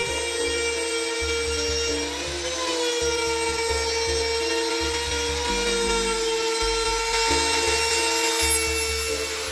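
Electric trim router running at full speed as its bit cuts a groove in plywood: a steady high whine that sags briefly in pitch about two seconds in. Backing music sits underneath.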